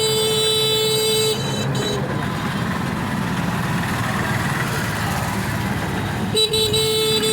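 A vehicle horn sounds two long, steady blasts, one at the start and one near the end, over continuous road traffic noise.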